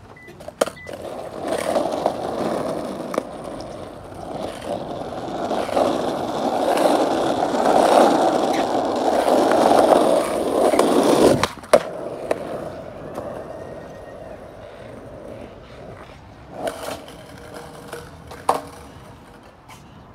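Skateboard wheels rolling over rough asphalt and concrete, a gritty rumble that swells and is loudest through the middle. A single sharp knock comes a little past halfway, after which the rolling is quieter, with a couple of lighter knocks near the end.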